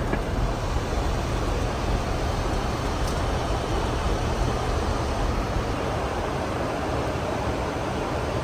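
Steady rushing of airflow and engine noise on a Boeing 747-400's flight deck during the descent into approach.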